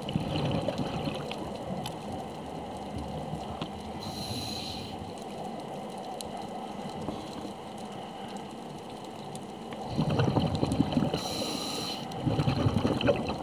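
Underwater sound of a scuba diver breathing through a regulator: a brief hiss of air on the inhales and loud rumbling bursts of exhaled bubbles, at the start and twice near the end, over a steady underwater rumble.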